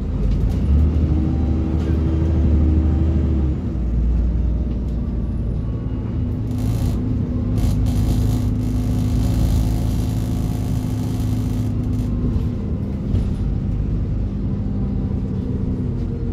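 Double-decker bus heard from on board, its diesel engine and ZF automatic gearbox running under way with a low drone. The engine note drops about three and a half seconds in, then the bus runs on steadily with road noise.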